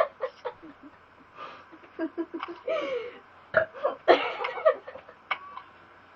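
A string of short burps with gaps between them, the loudest and longest about four seconds in.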